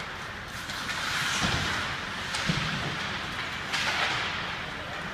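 Ice hockey skates scraping and carving across the ice in swelling hisses, with a sharp click and a couple of low knocks from sticks, puck and boards.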